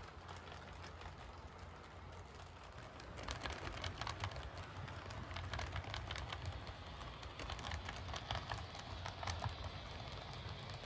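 HO scale model freight cars rolling along the track, their wheels giving scattered light clicks and rattles that come more often from about three seconds in, over a faint low hum.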